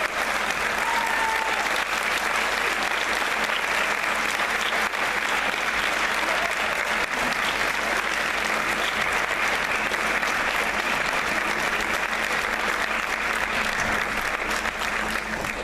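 Audience and contestants applauding, a steady, unbroken clapping that eases slightly near the end.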